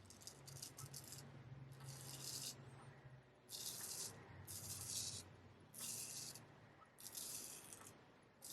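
Straight razor scraping through stubble in short strokes, about six in a row, each a brief crisp rasp.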